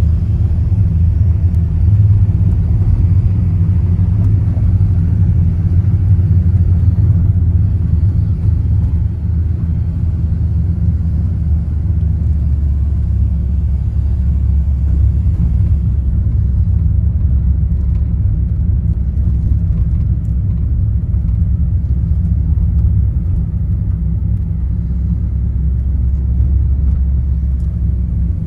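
Steady low rumble of wind buffeting the microphone and road noise while moving downhill behind the cyclists.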